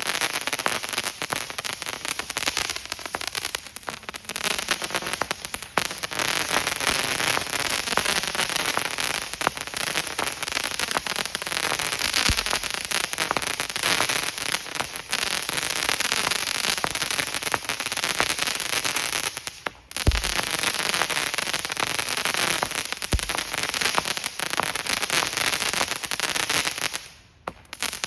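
A Phantom Fireworks Air Defense 100-shot cake firing crackling comets: dense, continuous crackling, with an occasional deep thump as a tube fires and a couple of brief lulls.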